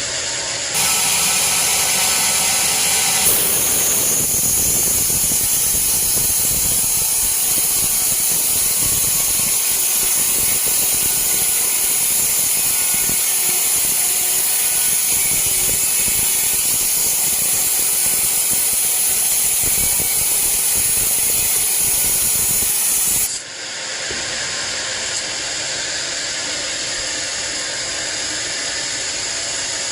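Band sawmill cutting through a teak log: the blade's loud, steady hiss in the wood starts about a second in, strengthens a couple of seconds later, and cuts off suddenly near 23 seconds, leaving the saw running without load.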